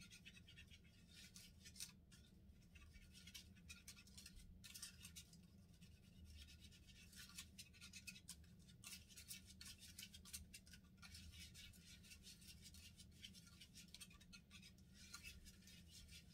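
Faint, continual scraping and clicking of a small plastic spoon stirring a candy-kit mixture of powder and water in a small plastic tray.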